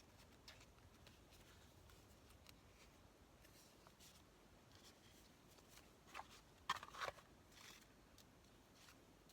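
Faint rustling and handling of paper pieces, with a few brief louder paper sounds about six to seven seconds in.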